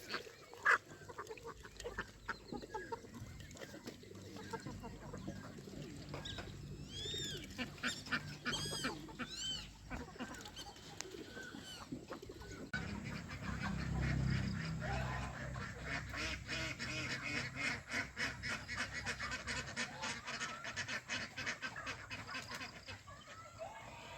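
Farmyard geese and ducks calling, honking and quacking. About seven to ten seconds in there is a run of high, arching calls, and from about halfway the calls become dense and rapid.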